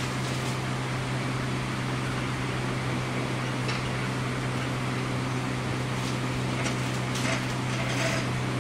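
Inside a JR 103 series electric commuter train car: a steady low hum with an even hiss, and a few faint brief ticks near the end.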